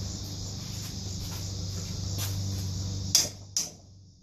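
A steady low hum with faint scattered ticks, then two sharp clicks about three seconds in as a wrench is set to work on a bolt of the ATV engine's case; the hum drops away after them.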